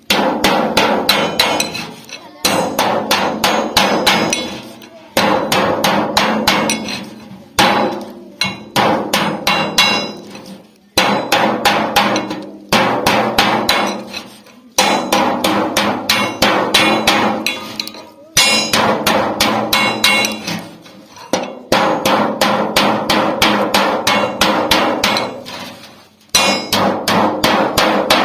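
Hammer beating sheet metal from an old refrigerator to shape a pot: quick runs of rapid, ringing metal strikes, each run a few seconds long, with short pauses between them.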